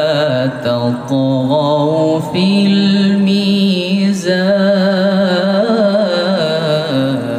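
A male voice reciting the Quran in the melodic tilawat style, holding long notes with wavering, ornamented turns of pitch and short breaks between phrases.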